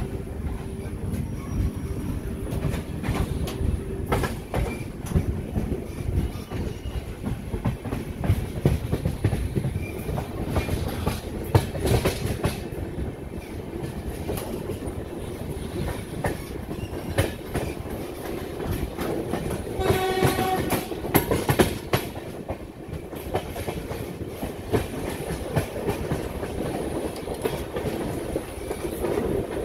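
Express passenger train running, heard close from an open coach doorway: a steady rumble with wheels clattering over rail joints. About two-thirds of the way through, the locomotive horn sounds once for about a second and a half.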